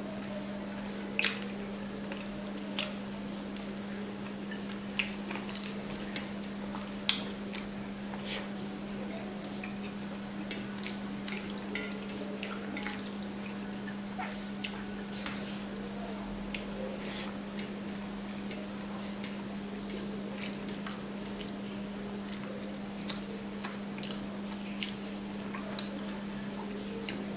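Fingers mixing rice with curry on a steel plate, with wet squishing and scattered sharp clicks of fingers against the plate, and chewing. A steady low hum runs underneath.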